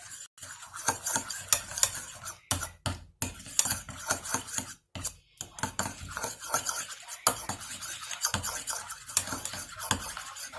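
A spoon stirring and scraping in a bowl, with rapid, irregular clinks and scrapes, briefly pausing about halfway through.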